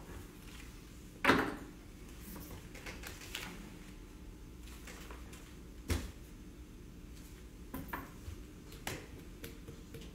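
A few scattered knocks and clicks over a quiet room, the loudest about a second in and another near six seconds in, like small objects handled on a table.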